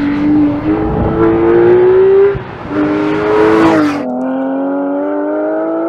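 Porsche 911 GT3's naturally aspirated flat-six under hard acceleration: the engine note climbs, breaks off about two and a half seconds in as it shifts up, and climbs again. From about four seconds in it settles into a steadier note that rises slowly.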